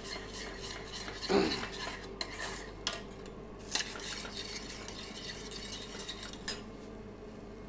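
A utensil stirring in small stainless-steel saucepans, scraping and clinking against the metal, with a few sharper knocks on the pans (the loudest about a second and a half in), over a faint steady hum.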